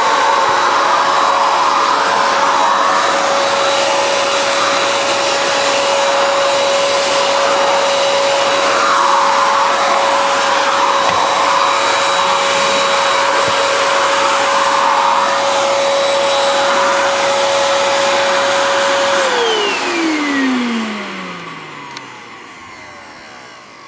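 Charlescraft backpack vacuum's motor running steadily with a high whine, with the bare floor tool on the hose; its rush of air swells and eases a few times. About nineteen seconds in it is switched off and the whine falls in pitch as the motor winds down.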